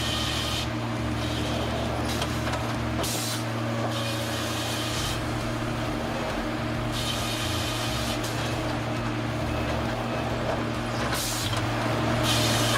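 Sawmill machinery running steadily with a low hum, with short bursts of hissing every few seconds.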